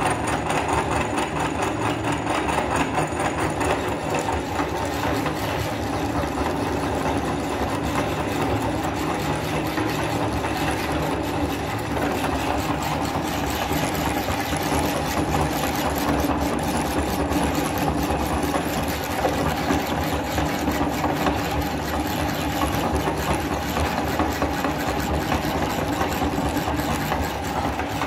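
Electric meat grinder's motor running steadily, a continuous mechanical hum and whir.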